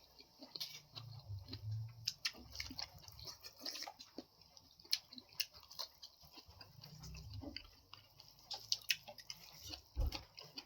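Someone eating and chewing close to the microphone: scattered soft clicks and mouth noises, with a few faint low murmurs.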